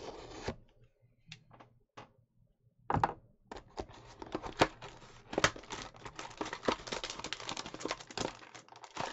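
Cardboard hanger box of trading cards being torn open by hand: a few light taps, then from about three seconds in a long run of crackling rips and snaps of paperboard, with a couple of sharper snaps along the way.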